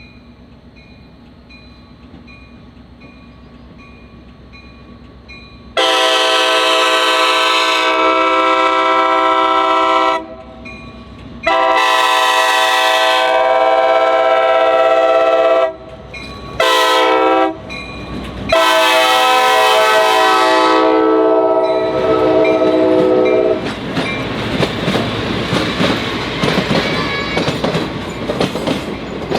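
Amtrak EMD F40PH diesel locomotive's air horn sounding the grade-crossing signal: long, long, short, long, starting about six seconds in after a faint hum of the approaching train. The train's wheels then clatter past over the rail joints.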